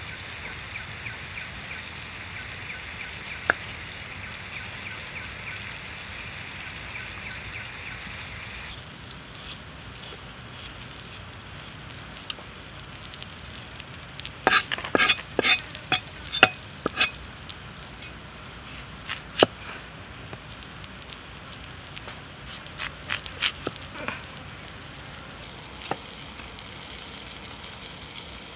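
A large knife peeling and slicing a raw potato against a wooden board: clusters of short, sharp cutting clicks that come and go, over a steady background hiss.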